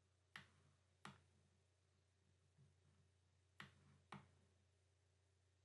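Near silence broken by four sharp computer mouse clicks in two pairs, the second pair about three seconds after the first.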